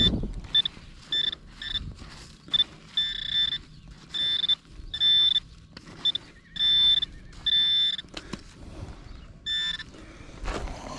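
Metal detector sounding a high-pitched target tone about a dozen times over a target that reads in the 80s. Some beeps are short and some drawn out, at uneven spacing, with a few knocks in between.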